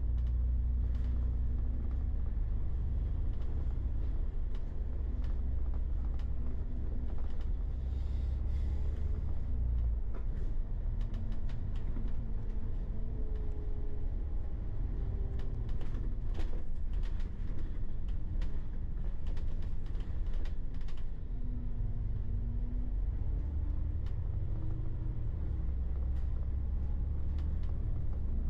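Riding inside a bus: a low engine rumble that swells and eases as it drives, with a faint whine gliding up and down and constant rattling and creaking from the interior.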